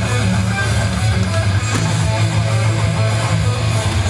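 Background music with guitar, steady and loud.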